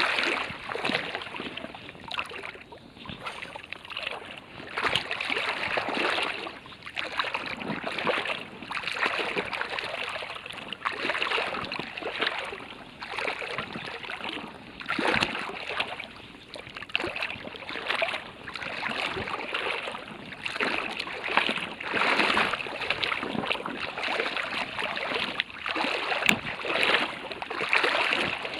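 Flowing river water: a continuous, uneven rush that surges and eases every second or two.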